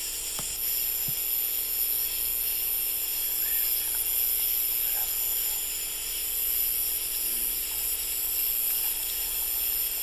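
Steady high-pitched chorus of night insects in woods and grass, with two faint clicks near the start.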